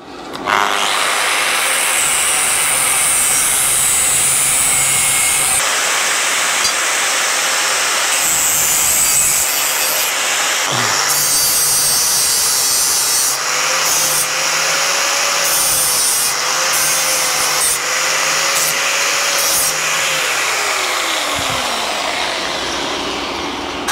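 Angle grinder with a cutting disc slicing through a small piece of steel box-section tube, a steady loud grinding hiss throughout. Near the end its tone falls away as the disc winds down.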